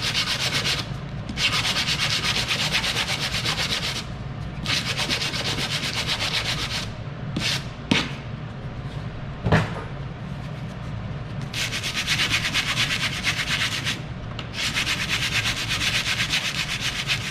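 Sandpaper on a hand-held sanding stick rubbed rapidly back and forth over a soldered metal seam to smooth away the last excess solder. It comes in several long bouts of fast, even strokes with short pauses between them. Two sharp knocks come in the quieter middle stretch.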